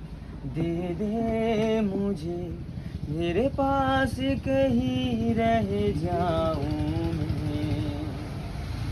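A man singing unaccompanied, long held notes that slide up and down in pitch, in three or four phrases with short breaths between them and no clear words.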